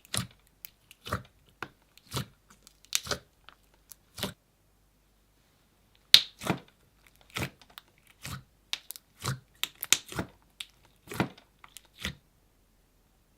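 Slime being squished and pulled by hand, making short, irregular sticky crackles and pops, with a pause about four seconds in and stopping about twelve seconds in.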